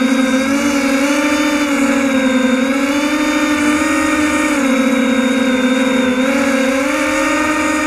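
Multirotor drone's electric motors and propellers humming steadily, the pitch wavering slightly up and down as the motor speeds adjust in flight.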